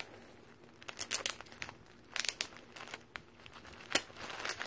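Bubble wrap being pulled apart by hand, crinkling in irregular bursts, with tape peeling and a sharp click near the four-second mark.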